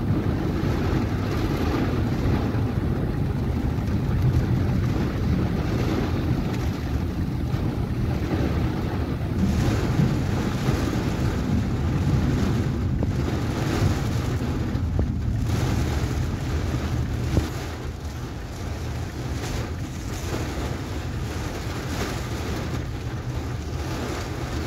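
Steady rumble and hiss of a car driving on a rain-soaked road in heavy rain, heard from inside the cabin: tyres running through water on the road. It becomes somewhat quieter about two thirds of the way through.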